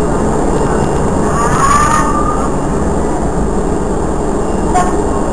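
Steady low rumble with no clear rhythm, with a short wavering whistle-like tone between about one and two and a half seconds in and a brief click near the end.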